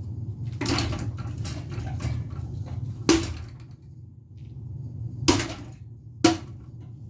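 A crowbar smashing a ceiling fan. A rattle of smaller knocks comes about a second in, then three hard, sharp blows, the last near the end, over a steady low hum.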